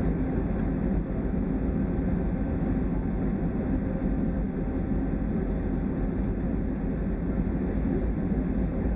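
Airliner engine and cabin noise heard from inside the passenger cabin, a steady deep rumble that neither rises nor falls.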